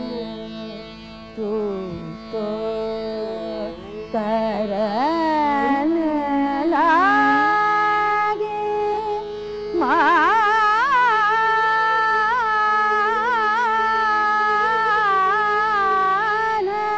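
Woman singing Hindustani classical vocal in raga Shankara over a steady tanpura drone: long sliding, ornamented phrases, with a brief pause about nine seconds in before a new held, wavering phrase.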